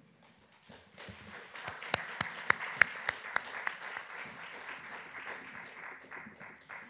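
Audience applauding. The applause starts about a second in, swells with a few sharp single claps standing out near the middle, then tapers off near the end.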